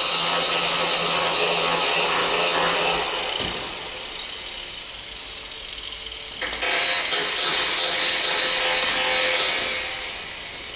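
Sanding the paint on a car body's roof, a continuous harsh rasping with a low hum under it at first. The rasping eases about three and a half seconds in and comes back strongly a few seconds later.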